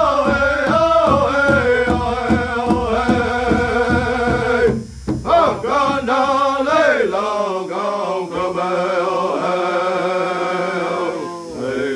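Men singing a powwow-style song in chanting voices to a large drum struck by several players at once in a steady beat. About five seconds in the drumming drops away and the singing carries on.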